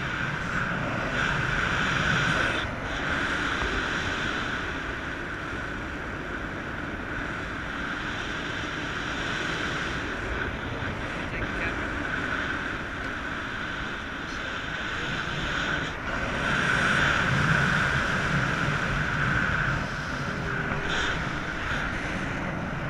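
Airflow rushing over an action camera's microphone during a paraglider flight: a steady rush that grows louder briefly about two seconds in and again for a few seconds later on.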